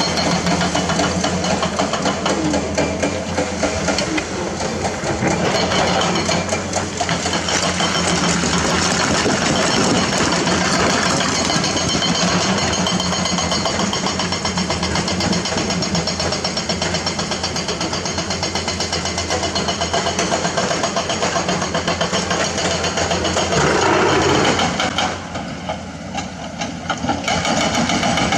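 Excavator engine running hard under a fast, steady hammering, typical of a hydraulic rock breaker pounding hard limestone. It eases off about 25 seconds in and picks up again near the end.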